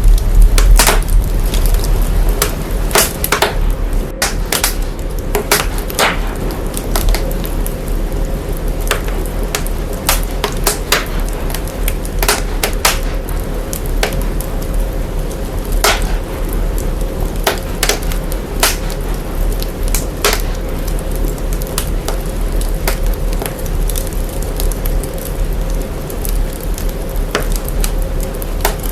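Fire crackling, with sharp irregular pops over a heavy, steady deep bass rumble brought out by signal processing.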